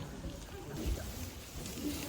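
Indistinct voices over a steady hiss, with a few low thumps.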